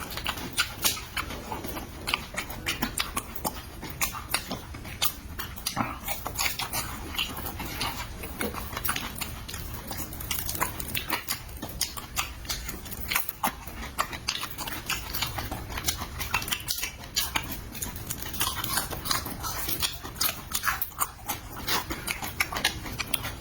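Close-miked chewing and mouth smacking while eating, an irregular run of wet clicks and smacks.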